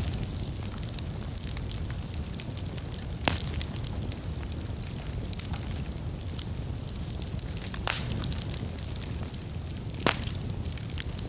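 Fire burning: a steady low roar under constant fine crackling, with three louder pops spread through.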